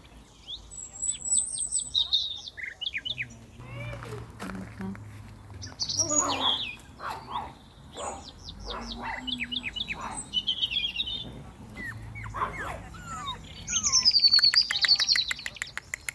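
Songbirds singing and chirping: quick high trills and sweeping notes one after another, with a fast rattling trill near the end, the loudest part.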